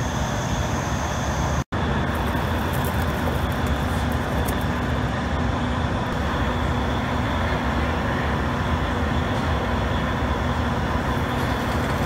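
Steady, even background noise with a faint hum, no distinct knocks or clicks, broken only by a split-second dropout about two seconds in.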